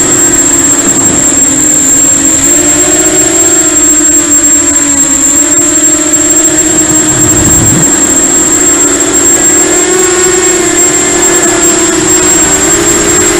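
Quadcopter's electric motors and propellers whining loudly, heard from the camera on the craft itself; the pitch wavers up and down as the throttle changes, with a steady high thin whistle above it.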